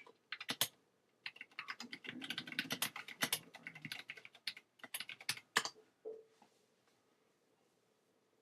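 Typing on a computer keyboard: a quick run of keystroke clicks for about five and a half seconds, then it stops.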